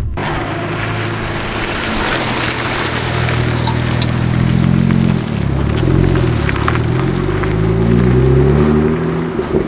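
BMW 335xi's twin-turbo N54 straight-six exhaust under acceleration, fitted with electric exhaust cutouts. The pitch climbs, drops sharply at an upshift about halfway through, then climbs again.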